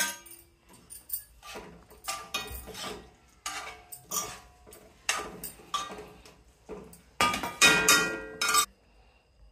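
A metal ladle stirring thick curry in a metal kadai, scraping and clinking against the pan in a string of irregular strokes, with a short metallic ring on some of them; the longest, loudest scrapes come near the end.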